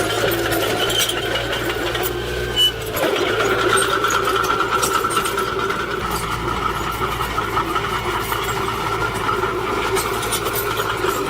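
Heavy earthmoving machinery's engine running steadily, with a brief sharp sound about two and a half seconds in.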